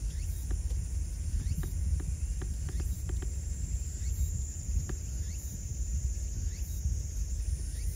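Outdoor shoreline ambience: a steady, uneven low rumble of wind on the microphone, with scattered faint ticks and a few short, faint rising chirps.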